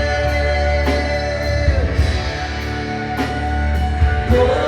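A live worship band playing between sung lines: sustained keyboard and guitar chords over a heavy bass, with a steady drum beat.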